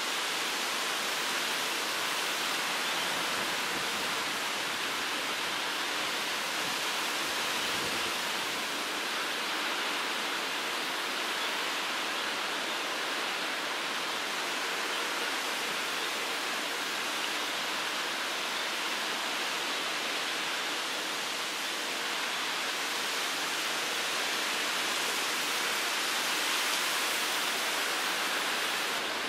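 A steady, even rushing noise with little bass and no separate sounds standing out.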